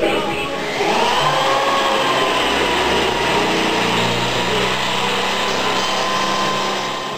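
Electric power tool motor spinning up about a second in, then running at a steady whine over a rushing noise.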